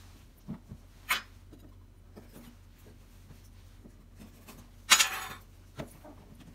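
Hands handling a glossy cardboard box: a few light taps, a brief brush about a second in, and a louder scrape of about half a second near five seconds in as the box is turned and lifted.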